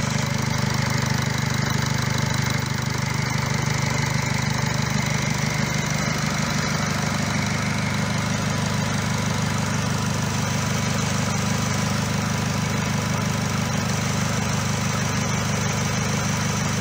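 Nissan Qashqai 2.0-litre diesel engine idling steadily, with an even, fast diesel clatter.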